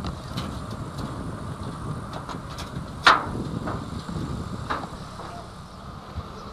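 A DR class 242 electric locomotive running over yard tracks: a low rumble with irregular clicks of wheels over rail joints and points. The loudest sound is one sharp metallic clank with a short ring about three seconds in.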